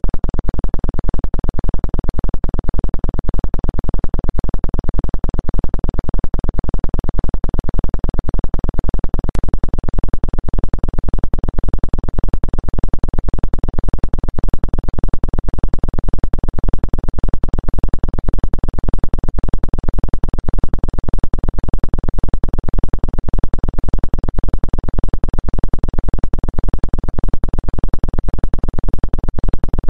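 Synthesized low electronic drone with a fast, even pulsing that never changes: a 'healing frequency' tone track billed as a 2 Hz acupuncture frequency.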